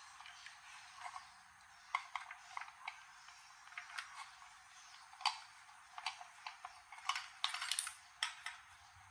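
Scattered light metallic clicks and taps of small toaster parts and hand tools being handled, with a quick run of clicks near the end.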